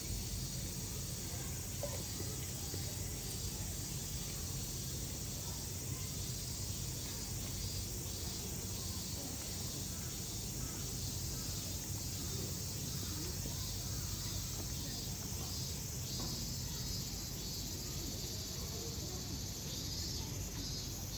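Insects chirping in a faint, regular pulse over a steady low background rumble.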